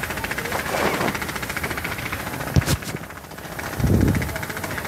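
An engine running steadily nearby with an even, rapid pulse. Two sharp clicks come about two and a half seconds in, and a brief low rumble near the end.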